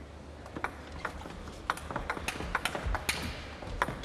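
Table tennis rally: the celluloid ball clicks sharply off rackets and the table, about ten quick irregular clicks, over a low hall hum, with one low thud about three seconds in.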